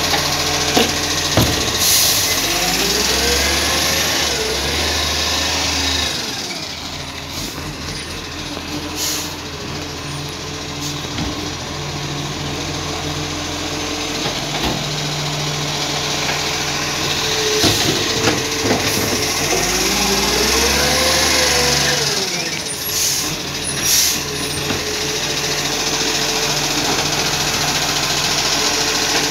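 A 2018 Iveco ACCO garbage truck's diesel engine runs steadily while its Superior Pak S5 side-loader arm cycles. Twice, a few seconds in and again about two-thirds through, the engine note changes and a hydraulic whine rises and falls as the arm lifts and tips a wheelie bin. Several sharp knocks are heard along the way.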